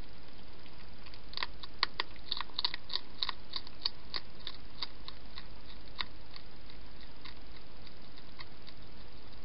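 Hedgehog chewing and crunching food, a run of sharp crunches about four a second starting a second or so in, then thinning out to scattered ones, over a steady hiss.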